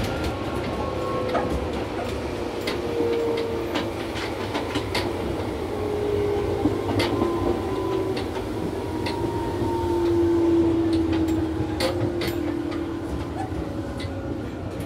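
Running sound of a Tobu 6050 series electric train car over its TM-63B traction motors: the whine of the motors and gears slides slowly down in pitch as the train slows. Sharp clicks come at irregular intervals over the rumble.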